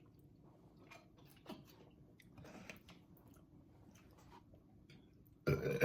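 Chewing: soft mouth noises and small scattered clicks as chicken nuggets are eaten, with a short loud vocal burst near the end.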